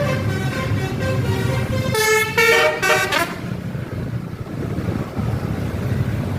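Bus telolet horn, a multi-tone air horn, playing a quick stepped tune of several notes about two seconds in. It is heard over the steady low rumble of the bus engine.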